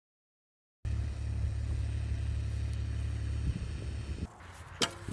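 A steady low rumble starts suddenly about a second in and drops away about four seconds in, followed by a couple of sharp knocks near the end.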